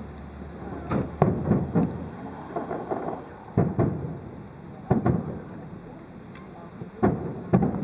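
Distant aerial firework shells bursting during a fireworks finale: booms with rumbling echoes, a quick cluster of four about a second in, then single bursts every second or so.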